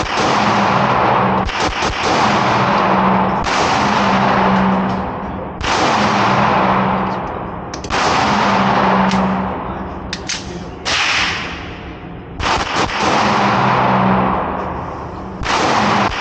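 Gunshots at a shooting range: about eight shots, roughly one every two seconds, each with a long echoing decay.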